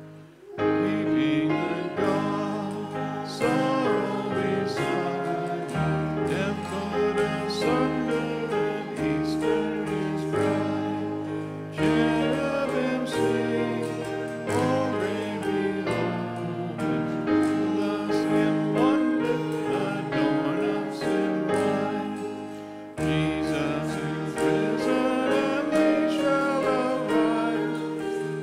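A congregation singing a hymn together over sustained keyboard accompaniment. It comes in about half a second in, pauses briefly about 23 seconds in at the end of a verse, then the next verse begins.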